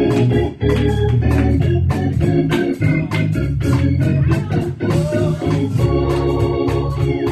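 Church organ playing lively music with held chords over a strong bass, with a regular beat of sharp strikes.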